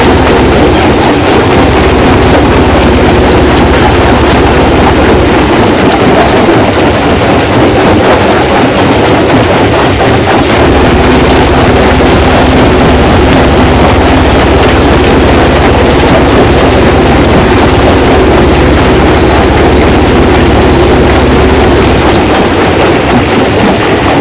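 Rock crushing machine running under load: a loud, steady mechanical rumble with a constant low hum and dense rattling noise as stone goes through.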